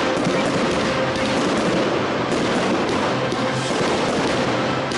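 Aerial fireworks shells bursting, a continuous rapid crackle of many small reports with no single big bang standing out. Music plays underneath.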